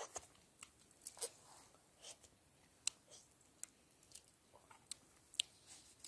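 Crab shells being cracked and picked apart during eating, with chewing: a string of short, sharp clicks and cracks at irregular intervals.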